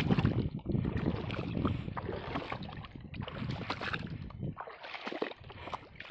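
Someone wading through shallow, weed-choked marsh water, splashing and sloshing step by step. It grows quieter about four and a half seconds in.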